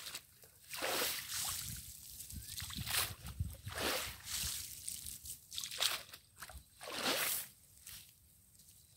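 Wet cast net being hauled out of a pond, with repeated swishes of water sloshing and streaming off the mesh as it is pulled up and lifted.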